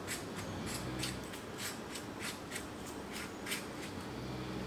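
Boya BY-M1 lavalier mic's battery adapter being twisted shut by hand, with faint, irregular clicking scrapes from its threaded cap, about two to three a second.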